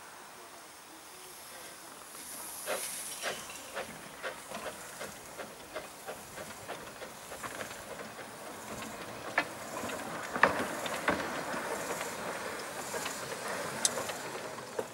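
Hunslet 0-4-0 saddle-tank steam locomotive 'Holy War' running slowly toward the listener: a steady steam hiss that grows louder as it approaches. Irregular sharp clicks and knocks come from the wheels over rail joints and points.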